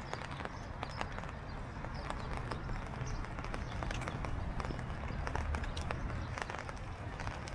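Someone walking on wet pavement in the rain: irregular footsteps and small sharp ticks over a steady low rumble.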